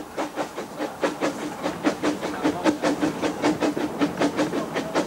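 Narrow-gauge steam locomotive Peter Sam (Talyllyn Railway No. 4) working along the line, its exhaust beating in a quick, even rhythm of about five beats a second over a steady running hum.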